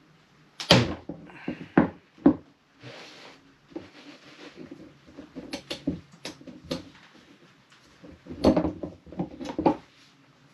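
Irregular clicks, knocks and scrapes of hands and a hand tool working at the fuel pump assembly and its fittings in a plastic fuel tank, with the sharpest knocks about a second in and a cluster near the end.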